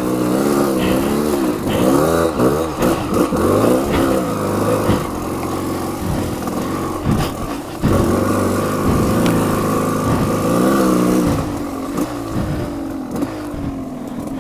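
Off-road motorcycle engine revving up and down again and again as the rear wheel spins through slick mud, with a brief drop in revs about eight seconds in.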